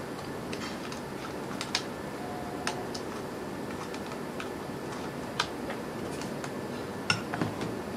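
A handful of light clicks and knocks of hard plastic as a quadcopter's body is handled and a USB cable is plugged into it, over a steady low hiss.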